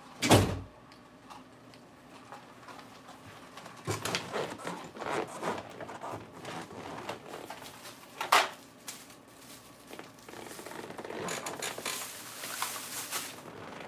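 A loud thump just after the start, then scattered knocks and clatter about four to six seconds in, a sharp knock a little after eight seconds, and a stretch of rustling near the end.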